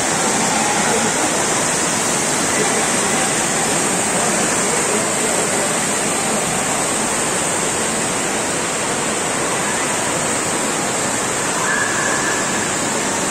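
Decorative fountain water cascading over sculpted rock and marble statues: a steady, even rush of falling water.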